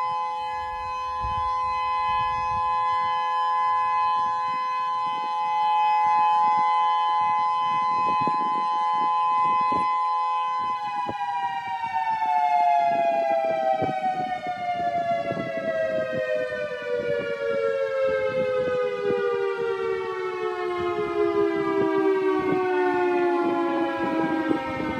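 Civil defense warning siren sounding a steady tone for its monthly test. About eleven seconds in it starts to wind down, its pitch falling slowly and continuously to the end.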